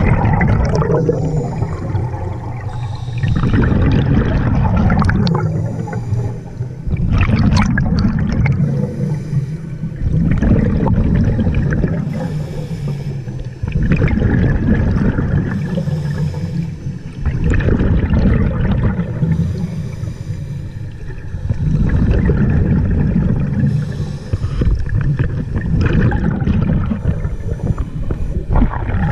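Scuba diver breathing underwater through an open-circuit regulator: a hiss on each inhale alternating with a rush of bubbling exhaust on each exhale, repeating about every four seconds.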